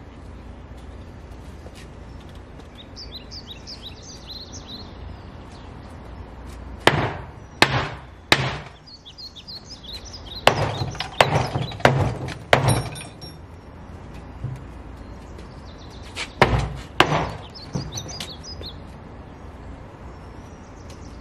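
Knocks and bangs of a metal tool on a wooden privacy fence as it is taken apart: three knocks, then a quicker run of them, then two or three more. Birds chirp in the pauses.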